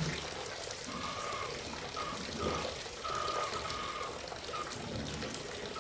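Water running from a tap into a bathtub, a steady splashing hiss, with short high-pitched tones coming and going over it.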